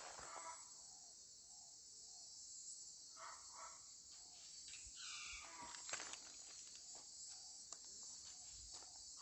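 Faint, steady, high-pitched chorus of insects such as crickets, with a few soft clicks or steps.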